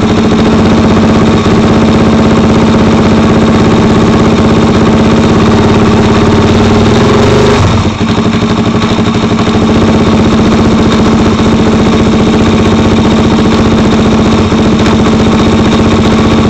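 Suzuki DR-Z400's single-cylinder four-stroke engine idling steadily, with a brief dip in level about eight seconds in. The owner is chasing an intermittent knock/rattle from it, which he suspects could be the decompressor going bad, the cam chain or the crank balancer.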